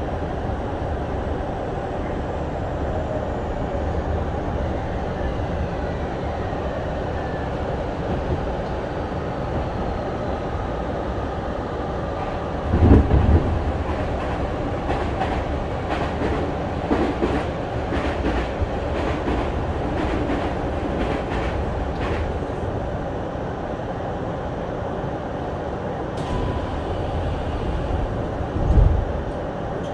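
Tokyu 5050 series motor car running, heard from inside: its Hitachi IGBT-VVVF inverter gives a faint falling tone over the first several seconds as the train slows, under steady wheel-and-rail noise. A loud rush about 13 s in as another train passes, clicks of wheels over rail joints, and a low thump near the end as the train stops at the platform.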